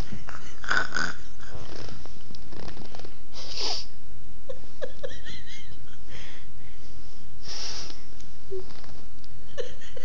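Breathy, wheezing vocal noises, in three or four hissy bursts, with a few short, high squeaks in between.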